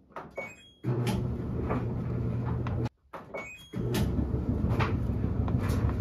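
LG front-load washing machine starting up: short high control-panel beeps, then a louder steady rumble with occasional knocks. The sequence repeats after an abrupt cut about three seconds in.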